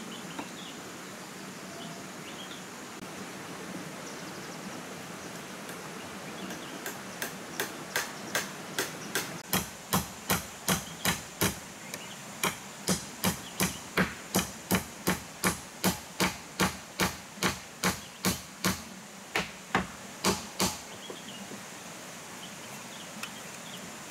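Hand hammering on the bamboo roof frame: a long run of sharp, evenly spaced blows, about two to three a second, starting several seconds in, with a couple of short pauses, and stopping a few seconds before the end.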